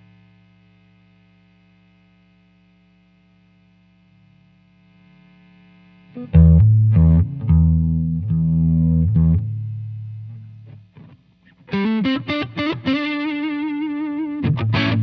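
Electric guitar through a Joyo R-02 Taichi overdrive pedal, a clone of the Zen Drive meant for a smooth Dumble-style tone. A held chord rings and fades for about six seconds, then overdriven chords are struck in a choppy rhythm, and after a short pause comes a single-note phrase with a long held note.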